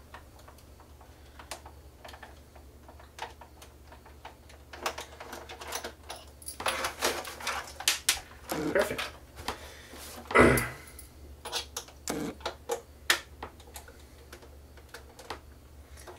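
Plastic housing of an Epson PowerLite 1221 projector handled and shaken upside down to work a loose screw out, giving a scatter of clicks and rattles, busiest in the middle, with one louder knock about ten seconds in.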